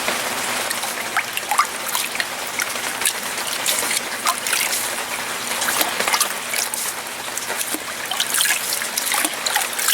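Water trickling and splashing steadily, with many small drips and plinks.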